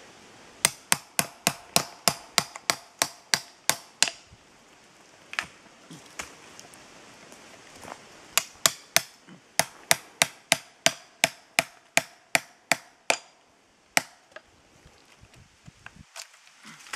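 Hammer striking a chisel to cut a chaga conk off a birch trunk: two quick runs of sharp strikes, about four a second, separated by a pause of a few seconds, then a couple of single strikes near the end.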